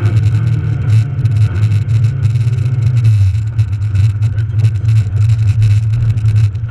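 Rally car's engine running hard under load, heard from inside the cabin over a steady haze of road and tyre noise on snow. The engine note drops briefly about three seconds in, then picks up again.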